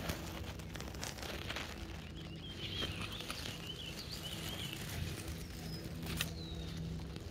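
A small songbird singing a warbling phrase in the middle, with a couple of short chirps near the end, over grass stems rustling and crackling against something moving through them.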